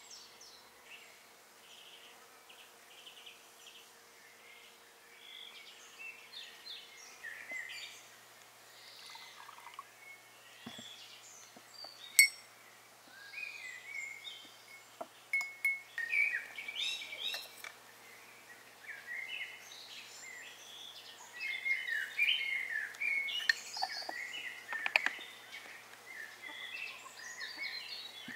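Several songbirds chirping and singing, busier in the second half, with a spoon clinking against a small glass. One sharp click about twelve seconds in is the loudest sound.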